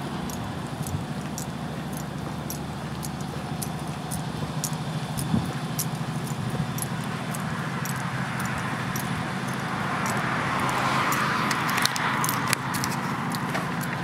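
Outdoor traffic ambience: a steady low hum with small scattered clicks, and a vehicle passing that swells and fades between about eight and twelve seconds in.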